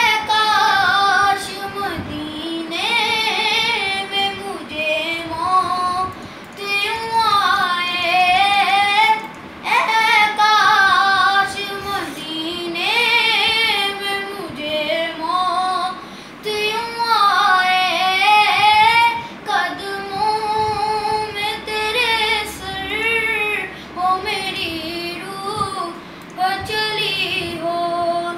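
A boy singing a naat, an Urdu devotional song in praise of the Prophet Muhammad, solo and without instruments. His voice moves in sung phrases a few seconds long, with gliding, ornamented pitch and short pauses between lines.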